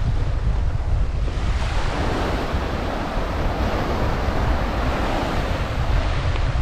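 Surf on the beach, with wind buffeting the microphone as a steady low rumble. A wave washes in, swelling from about a second and a half in and fading near the end.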